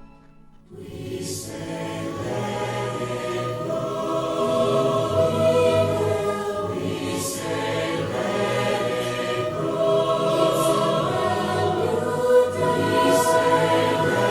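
A choir singing over full musical backing. It comes in just under a second in, after a brief hush, and builds in loudness.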